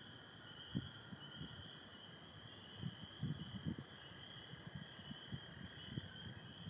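A chorus of spring peepers makes a dense, high, shimmering din over the long, steady trill of American toads, whose pitch shifts slightly lower near the end. Irregular low thumps come and go, loudest about three seconds in.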